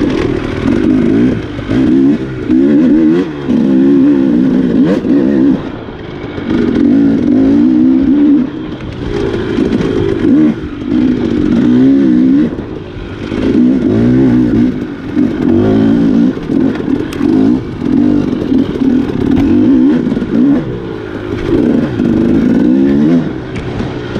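Dirt bike engine ridden off-road in an enduro, revving in repeated throttle bursts that rise and fall every second or two.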